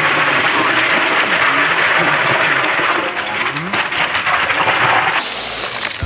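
Loose ice cubes pouring out of a plastic bag into a plastic cooler, a loud, continuous clatter, stopping abruptly about five seconds in.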